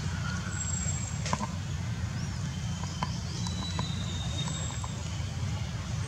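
Outdoor background noise: a steady low rumble, with a few faint high chirps and soft clicks scattered through it.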